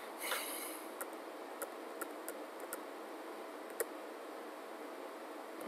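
Several faint, scattered clicks from a computer mouse, spaced irregularly over a steady background hiss. A short rustle comes just after the start.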